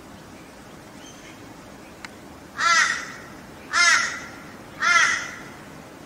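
Laughing kookaburra giving three short, harsh calls about a second apart.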